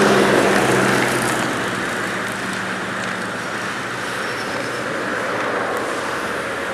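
A lorry drives past close by on a motorway, its engine hum and tyre noise fading over the first couple of seconds as it pulls away. Steady motorway traffic noise follows.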